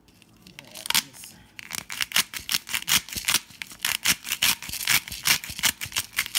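Pink Himalayan salt grinder being twisted by hand, a rapid run of gritty ratcheting clicks about three to four a second, starting about two seconds in.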